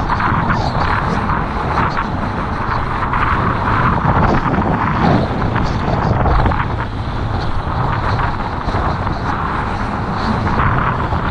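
Wind buffeting the microphone and water rushing and splashing under a kiteboard riding fast across choppy water, a continuous loud noise with no break.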